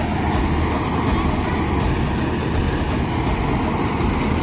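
Swaraj 8100 combine harvester running steadily under load as it cuts paddy, an even engine and machinery drone.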